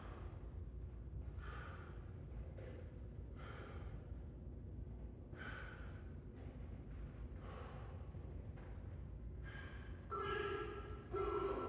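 A man breathing hard while resting between high-intensity exercise rounds, an audible breath every second or two over a low steady hum. Near the end, steady beeps start as the interval timer counts down to the next round.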